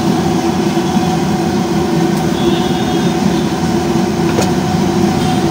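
Masala vadas deep-frying in a large iron kadai of oil: a steady, loud bubbling sizzle over a low steady roar with a hum.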